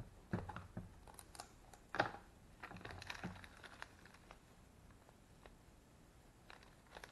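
Light clicks and taps of a clear plastic storage case being unlatched and opened, then faint rustling as a small plastic bag of parts is handled. The sharpest click comes about two seconds in.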